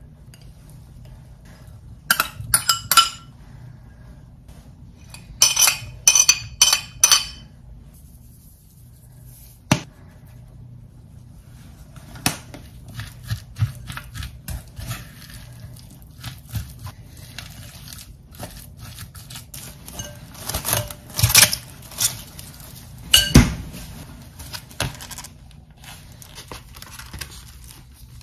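Metal spoon knocking against a glass mixing bowl in two quick runs of ringing clinks, then a silicone spatula stirring and scraping salad in the glass bowl, with scattered knocks against the glass.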